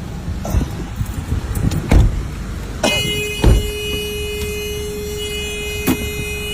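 Car rumble with a few knocks, then about three seconds in a car horn starts sounding one steady held note and keeps going.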